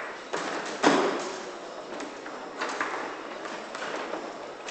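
Foosball in play on an Ullrich Sport table: a handful of sharp knocks and clacks of the ball being struck by the plastic men and hitting the table walls, with one loud bang just under a second in.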